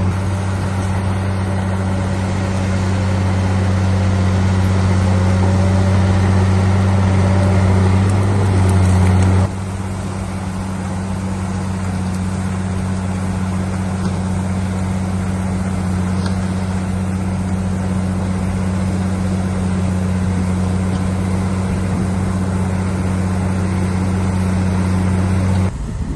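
Heavy earthmoving machine's diesel engine running steadily at a constant pitch. The sound drops in level suddenly about nine seconds in and cuts off abruptly near the end.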